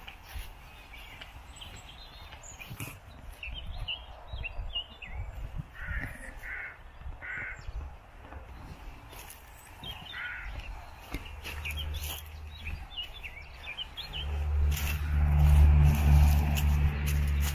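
A crow cawing three times about six seconds in and once more around ten seconds, with small birds chirping in between. A low rumble swells up over the last few seconds and is the loudest sound.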